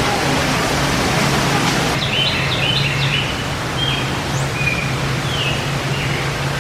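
Birds chirping: short high calls, several in quick succession from about two seconds in, over a steady rushing noise and a low hum.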